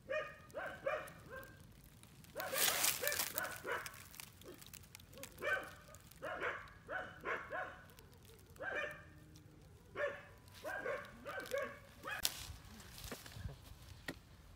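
Dog barking repeatedly in quick runs of three or four short barks. A brief burst of noise comes about two seconds in.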